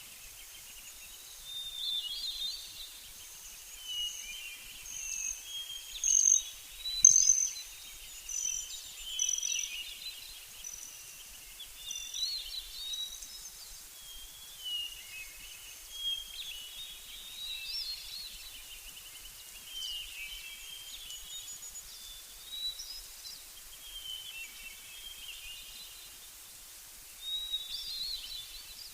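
Songbirds singing: short chirping and warbling phrases every second or two, with a louder run of high notes about six to nine seconds in.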